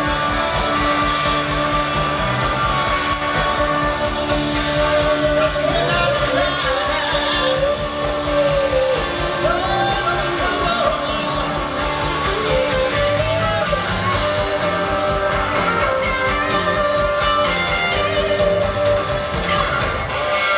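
Live rock band playing, with electric guitars, bass and drums, and a male lead voice singing over them.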